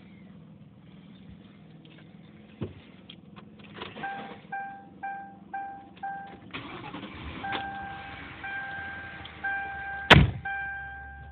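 Dashboard warning chime of a 2003 Ford Crown Victoria beeping over and over, first in short quick beeps and then in longer, slower ones. A few clicks come before it, and a single loud, heavy thump comes about ten seconds in.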